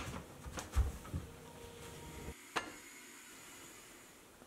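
Faint kitchen handling sounds: a few light knocks and clicks of utensils and containers in the first second or so, then a single sharp click about two and a half seconds in.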